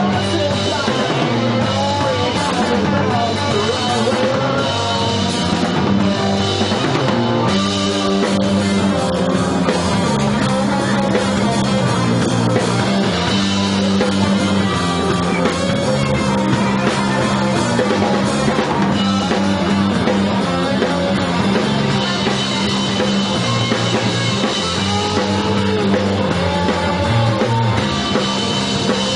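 Stoner rock / garage punk band playing live: electric guitars, bass and a drum kit in a steady, loud rock groove.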